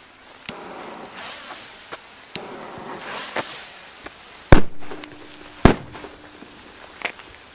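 Trueno Special No. 6 firecrackers, 1.5 g each, going off one after another: a few small sharp cracks at first, then two loud bangs about a second apart around the middle and a smaller bang near the end.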